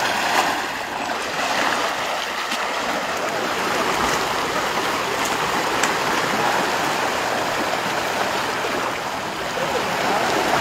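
Steady rush of flowing river water, churned and splashed by a baby elephant wading across the current.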